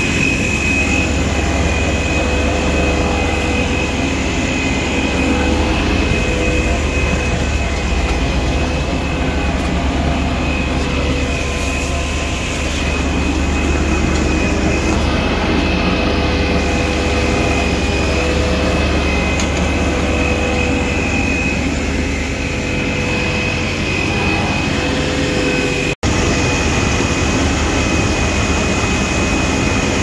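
Concrete line pump and truck mixer running together: a loud, steady machinery drone with a constant high whine over it.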